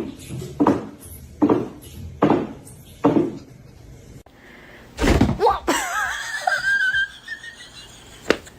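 A run of five dull knocks or thumps, about one every 0.8 seconds, then a louder clatter about five seconds in followed by a wavering, warbling high-pitched sound lasting about two seconds.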